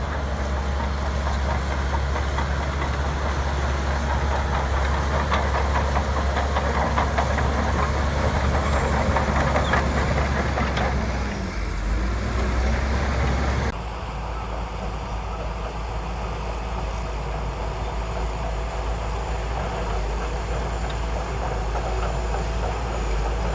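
Shantui DH17C2 crawler bulldozer's diesel engine running under load, with metallic clanking and rattling that is strongest in the first half. About two-thirds of the way through, the sound changes abruptly to a steadier, slightly quieter engine.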